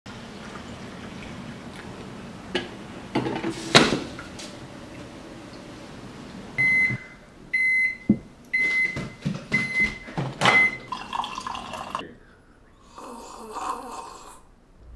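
Coffee pouring from a drip coffee maker's carafe into a mug, with a few knocks of crockery. Then a microwave oven beeps five times, short high beeps about a second apart, signalling it has finished.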